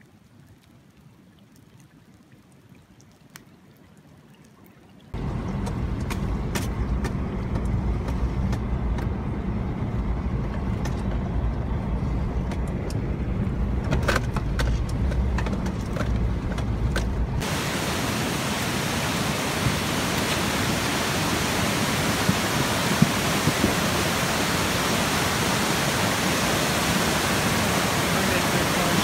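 Faint for the first few seconds, then a vehicle's cabin rumble with rushing floodwater outside. From about seventeen seconds in, a loud, steady roar of a flooded creek in full torrent.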